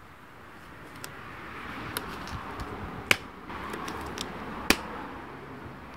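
Disposable gloves being pulled onto the hands: rubbery rustling and stretching, with several sharp snaps, the loudest about three seconds in and again near five seconds.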